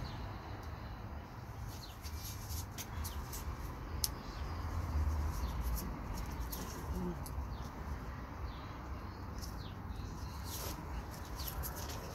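Plastic grafting tape crackling in short faint ticks as it is stretched and wound around a bark-grafted cherimoya rootstock, over a steady low rumble.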